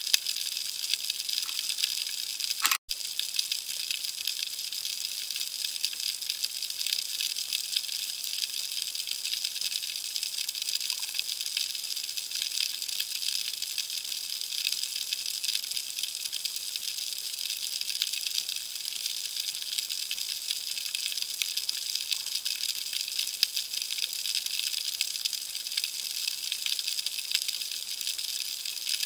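Underwater ambience: a dense, steady crackle and hiss of snapping shrimp and moving water, made of countless tiny clicks. It cuts out for an instant about three seconds in.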